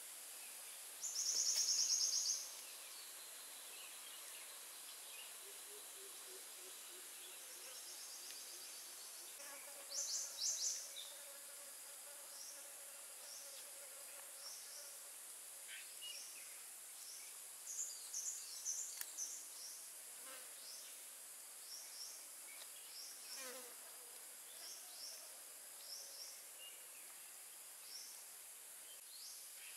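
Insects buzzing and trilling over a steady high hiss. There are short buzzy trills, the loudest about a second in, and scattered quick chirps later on.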